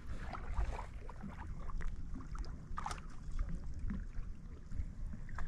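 Low rumble of wind and water around a small boat, with a few scattered knocks, the sharpest about three seconds in.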